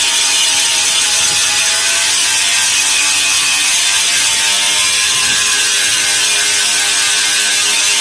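Stick arc welding with a 6013 electrode: the arc's steady crackling hiss, burning without a break.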